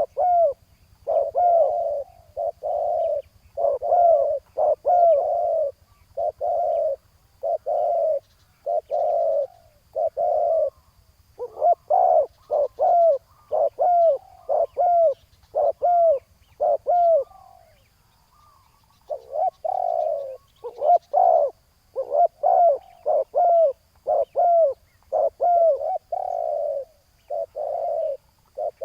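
Spotted doves cooing in rapid repeated phrases of short, low, hooting notes, with a brief pause about two-thirds of the way through.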